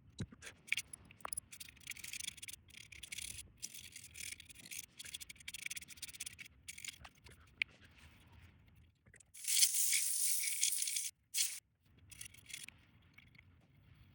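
Small clicks and rattles of small circuit-board parts being handled on a bench. About two-thirds of the way in comes a second and a half of brisk rubbing or scrubbing, followed by a few more light clicks.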